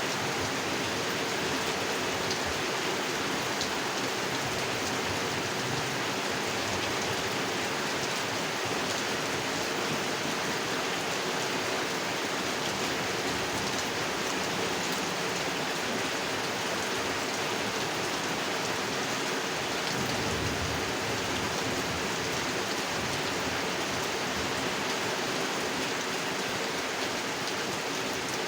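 Steady heavy rain falling and pattering on the surface of a pond, an even hiss with no letup.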